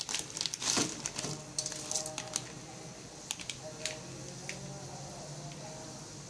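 Plastic instant-noodle packet crinkling and rustling as the noodle block is tipped out of it into a pot of water, with a quick run of crackles and clicks over the first two seconds or so, then a few single ticks. A low steady hum runs underneath.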